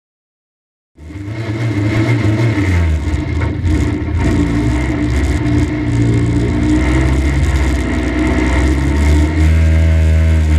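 A 1300 stock car's engine running under way, heard from inside the cockpit, its revs wavering up and down. The sound cuts in suddenly from silence about a second in, and near the end the engine settles to a steadier, louder note.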